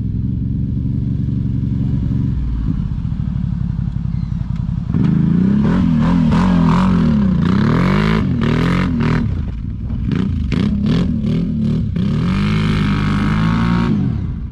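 ATV engine running at low revs, then from about five seconds in revving up and down repeatedly as the quad turns and climbs, ending on a long high-revving pull under load.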